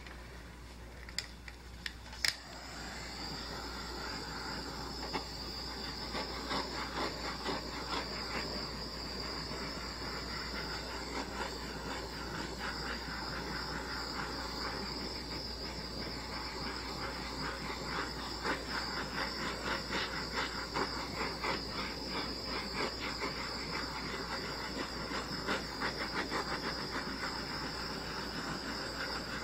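Handheld butane torch: a few sharp clicks in the first two seconds or so, then a steady hiss of the flame with a light flutter as it is passed over wet acrylic pour paint.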